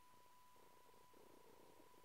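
A domestic cat purring faintly, a soft pulsing rumble, over a faint steady high tone.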